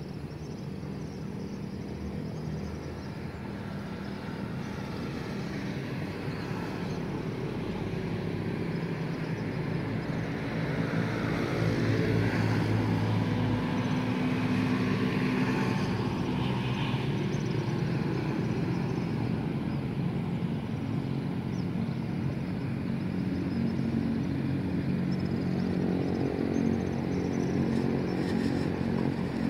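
Road traffic: car and motorcycle engines running past, swelling to a peak about halfway through and then holding steady.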